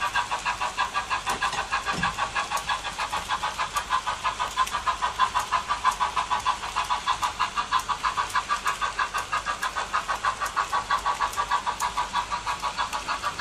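Märklin H0 model freight train of tank and silo wagons rolling past, its metal wheels clicking rhythmically over the track joints at about five clicks a second.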